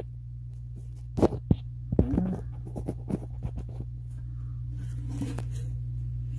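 Handling noise as a phone camera is worked into the open top of a Bose 601 Series IV speaker cabinet: scattered knocks, clicks and rubbing against the fibreboard walls, most of them between about one and four seconds in, over a steady low hum.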